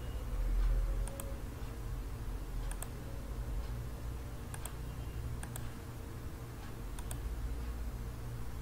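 Computer mouse clicking: about six single clicks a second or two apart as points are placed in a CAD sketch, over a faint steady low hum.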